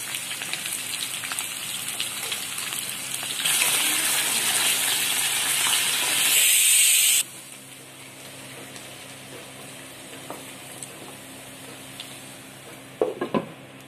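Potato wedges sizzling as they fry in hot oil in a frying pan. The sizzle grows louder a few seconds in, then drops suddenly to a quieter, steady sizzle about halfway through.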